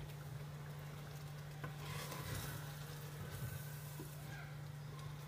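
Wooden spoon stirring a thick meat and tomato sauce in a frying pan, the sauce sizzling softly on the heat, with a few light taps of the spoon.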